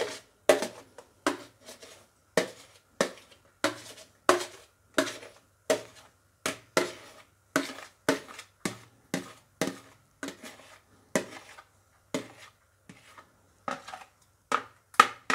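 A spoon scraping and knocking against the inside of a plastic mixing bowl, as stiffly whipped egg whites are spooned out into cake batter. The strokes come in a steady series, roughly one every half second.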